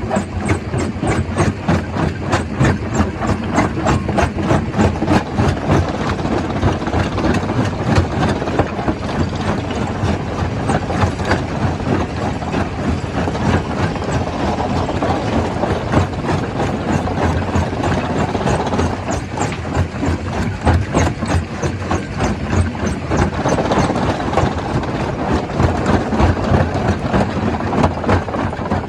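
Stone crusher running and crushing rock: a steady heavy rumble with a dense, irregular clatter of knocks from stone being broken.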